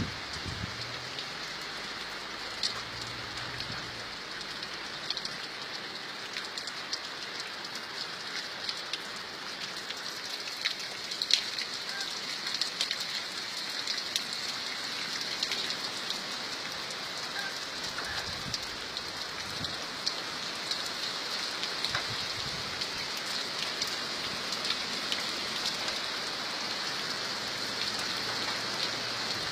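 Steady rain falling: a continuous hiss scattered with sharp taps of individual drops.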